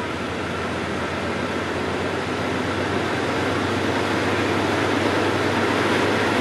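Diesel locomotive approaching slowly, its engine running with a steady rumble that grows gradually louder as it nears.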